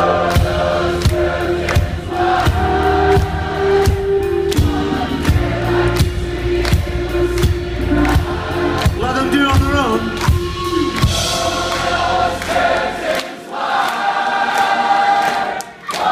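Live rock band playing with a large audience singing along in chorus. The bass and drums drop out about thirteen seconds in, leaving mostly the crowd's voices.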